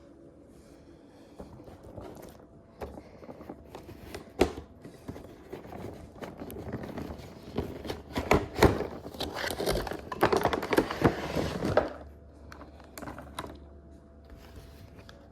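Toy packaging being opened by hand: rustling and crinkling of cardboard and plastic with scrapes and small knocks, busiest from about six to twelve seconds in.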